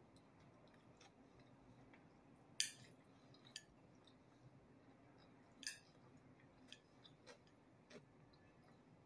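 Faint chewing of fried egg and potato, with a few short sharp clicks from the chopsticks and the mouth; the two clearest clicks come about two and a half and five and a half seconds in.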